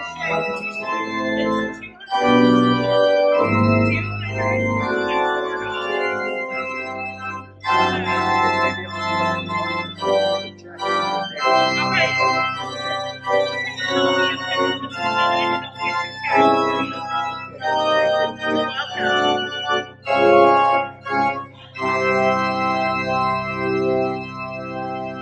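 Church organ playing sustained chords over long-held low bass notes, the chords changing every second or so, with brief breaks between phrases.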